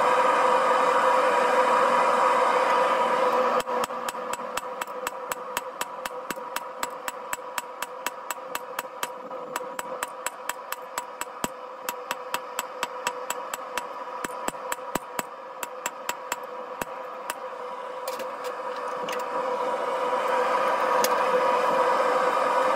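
Hand hammer striking hot rebar on a steel anvil in a steady rhythm of about three blows a second, starting about four seconds in and stopping about three-quarters of the way through. Under and around the blows, a propane forge's burner runs with a steady roar.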